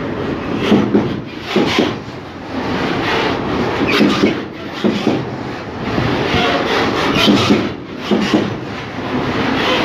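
Container freight train rolling past close by: a steady rumble of wagon wheels on the rails, with repeated knocks, often in quick pairs, as the wheels run over the track.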